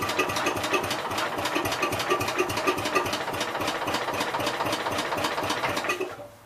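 Engine of a 1966 Gravely C10 walk-behind tractor running with a steady, rapid firing beat, then stopping abruptly about six seconds in. The owner suspects the ignition coil under the flywheel is going bad.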